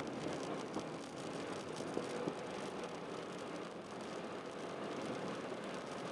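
Honda Jazz 1.3 four-cylinder engine running at a fairly steady pitch over a constant rush of road noise, with two short knocks about two seconds in.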